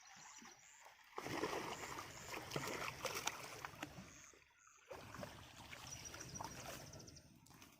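Faint splashing and sloshing of water with small clicks, in two stretches broken by a short drop-out about four and a half seconds in.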